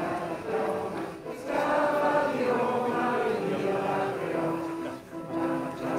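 A crowd singing together, many voices holding long notes of a slow melody.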